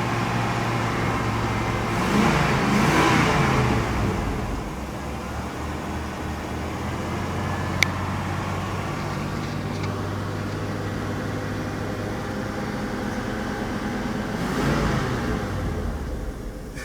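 Rolls-Royce 6.75-litre V8 idling steadily. Two swells of louder rushing noise come over it, one a couple of seconds in and one near the end, and there is a single sharp click about eight seconds in.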